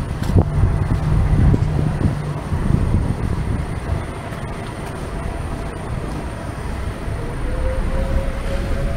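Town street ambience: a steady low rumble of traffic mixed with wind buffeting the microphone. A faint engine hum rises slowly in pitch near the end.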